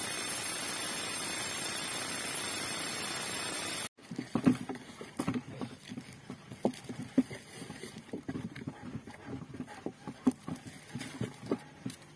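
Jackhammer drilling a hole in rock with a 36 mm bit, a steady unbroken noise that cuts off abruptly about four seconds in. After that come irregular soft rustles and taps.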